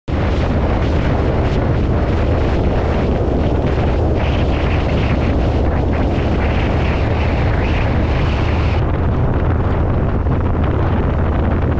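Heavy wind rush over the microphone of a moving motorcycle, steady and unbroken, with the low drone of a Harley-Davidson Road King's V-twin engine underneath.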